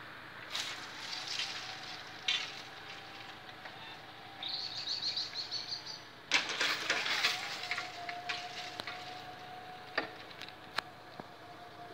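Level-crossing barrier drives humming with a steady whine as the striped booms lower, the far-side barrier first and the near one about seven seconds in. A bird trills briefly about four and a half seconds in, with patches of rustling on the microphone and a couple of sharp clicks near the end.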